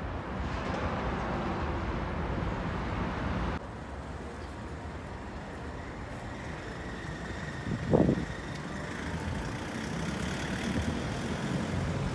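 Busy city street ambience with road traffic running past. The background drops abruptly about three and a half seconds in, and a single short loud thump sounds about eight seconds in.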